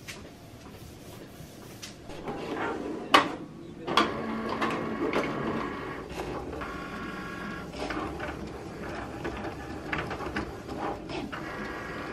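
Printer running a print job: a motor whirring with repeated clicks and clunks, starting about two seconds in.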